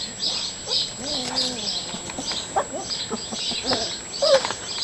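Bernese mountain dog puppies making soft whimpers and short squeaky vocal sounds, with steady high-pitched chirping in the background.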